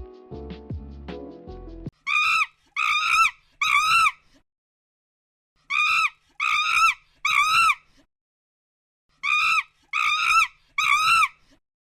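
Monkey calling in short, high shrieks: three bursts of three calls each, every call rising and then falling in pitch, with short silences between the bursts. A brief musical jingle plays just before the first calls.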